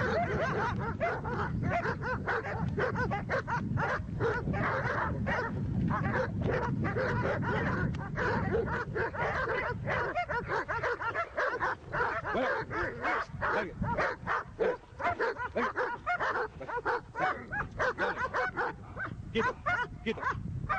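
Dog barking in a fast, unbroken run of barks, several a second, as in attack training.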